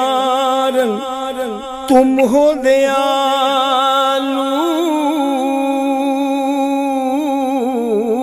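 A man singing a naat solo, drawing out long held notes with a wavering, ornamented pitch, with a short break about two seconds in before the next long phrase.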